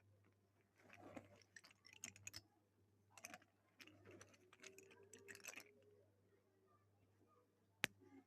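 Slate pencils and their packaging being handled: faint clicks and scratchy rustles in a few short clusters, with one sharp click near the end.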